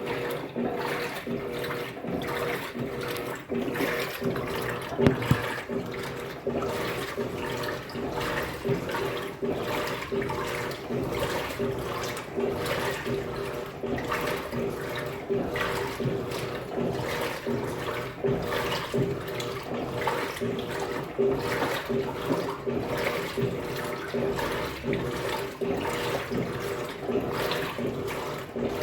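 Electrolux Turbo Economia 15 kg top-loading washing machine in its wash cycle: water sloshing in quick, rhythmic surges over a steady motor hum.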